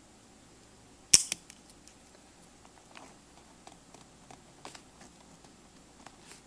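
One sharp click about a second in, typical of a multi-pen's clip or slide mechanism, then faint scattered ticks and scratches of a mechanical pencil writing on paper.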